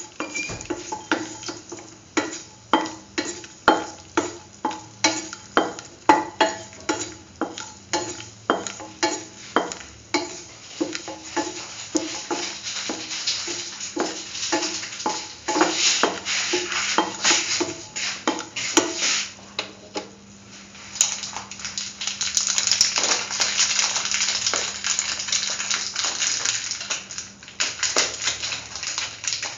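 Spatula stirring cardamom pods in ghee in a stainless steel pan: quick ringing taps and scrapes on the metal, about two a second, for the first half, then a steady frying sizzle through the second half.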